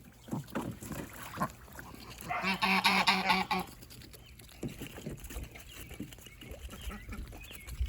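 Goose giving a loud honking call that lasts about a second, a little over two seconds in, with quieter scattered bird sounds around it.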